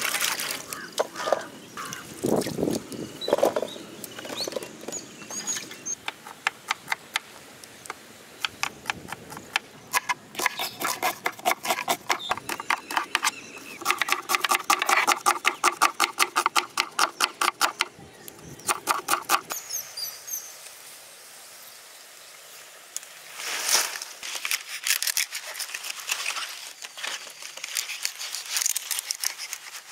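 Fast, even runs of sharp taps from a kitchen utensil during food preparation, several taps a second. A steady tone sounds underneath for a few seconds in the middle.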